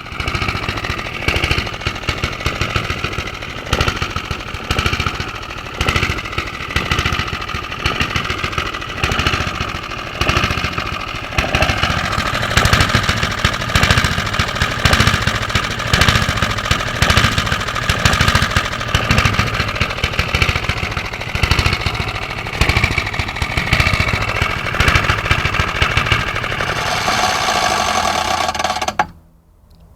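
Small single-cylinder petrol engine of a Qualcast Commodore cylinder lawn mower running steadily, pottering along at a stately pace, then cutting out abruptly near the end.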